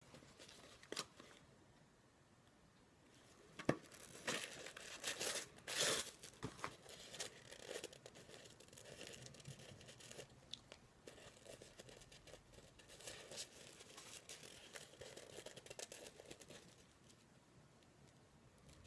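Paper being handled: rustling, crinkling and tearing with scattered sharp clicks, busiest and loudest from about four to seven seconds in, then dying away near the end.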